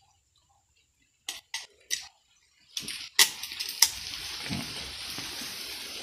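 Three short sharp clicks of a steel bolt and washers being handled, then a steady hiss with two sharp knocks.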